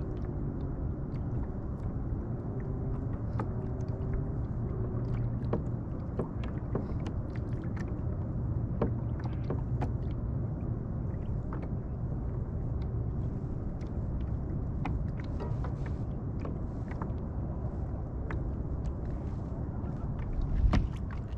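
A boat motor running steadily while the boat is under way, with water slapping against the hull in quick irregular taps. There is a louder thump near the end.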